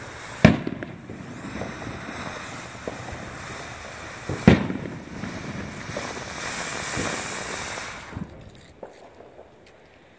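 Black Cat 'From the Heart' fountain firework spraying sparks with a steady hiss. Two loud pops come about half a second and four and a half seconds in, with smaller pops scattered between. The hiss dies away about eight seconds in as the fountain burns out.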